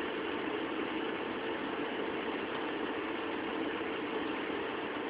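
Steady hum and hiss of running electronic bench equipment, with a faint steady tone underneath.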